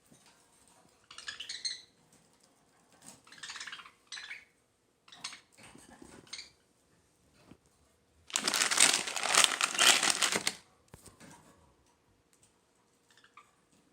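Plastic treat packaging crinkling in several short spells, then a longer, louder crinkle about eight seconds in.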